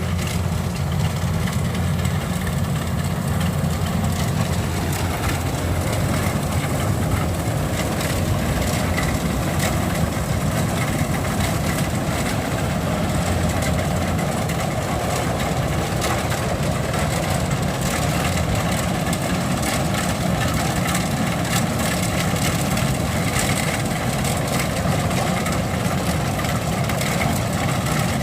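Kubota DC93 combine harvester's diesel engine running steadily.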